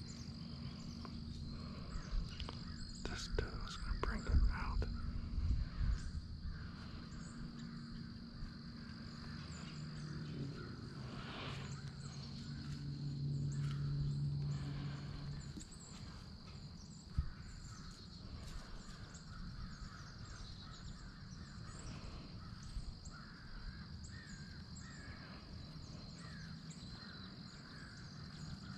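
Woodland ambience with birds calling, and a cluster of knocks and rustles a few seconds in from the rifle being handled against the tree stand's padded metal rail. A low hum swells and fades around the middle.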